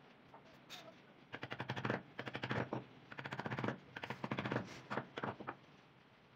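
Wood-carving chisel cutting into a carved wooden panel: about six short bursts of rapid clicking, each about half a second long, from about a second in until about five and a half seconds.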